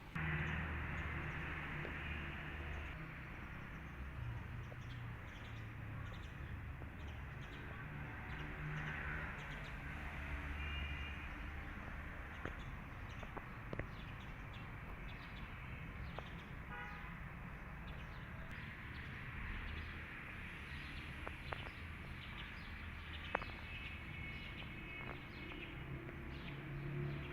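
Steady outdoor background noise with a low hum, broken by a few short bird chirps.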